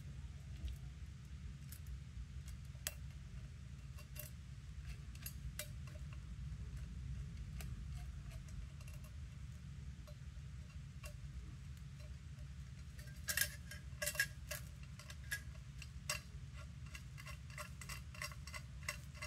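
Scattered light clicks and clinks of a small screwdriver, tiny screws and aluminium enclosure parts being handled, with a run of louder clinks about 13 to 16 seconds in. A steady low hum runs underneath.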